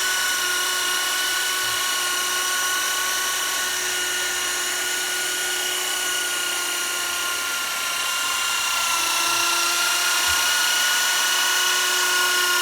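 Electric polishing machine buffing plastic polish into a car's headlight lens, with a steady high whine throughout.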